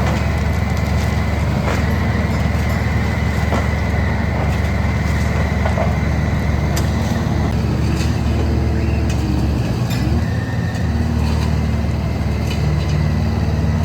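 An engine running steadily: a low, even drone with a few faint clicks over it.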